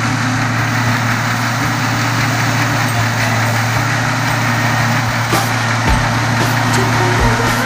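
New Holland T6080 tractor's diesel engine running at a steady pitch under load, pulling a seed drill.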